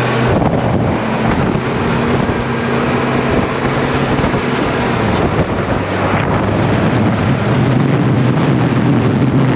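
Detroit Diesel engine of an old Ford truck running as the truck drives, with heavy wind rush on the microphone. The steady engine hum comes through more clearly near the end.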